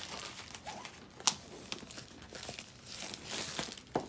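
Clear plastic shrink wrap being peeled off a cardboard game box and crumpled, with steady crinkling and crackling and one sharp crackle about a second in.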